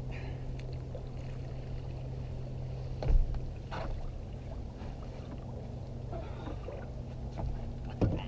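Knocks and handling noises while a hooked largemouth bass is fought and landed: one sharp knock about three seconds in, another just before the end, over a steady low hum.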